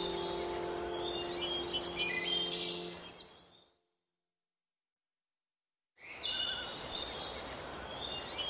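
Background soundtrack of birdsong chirps over a soft haze of nature ambience, with held ambient-music tones that fade out about three and a half seconds in. About two seconds of dead silence follow, then the birdsong and haze start again.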